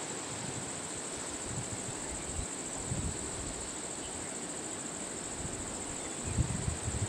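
Steady chorus of insects, a constant high-pitched buzz over an even outdoor hiss. A few low rumbles come in near the end.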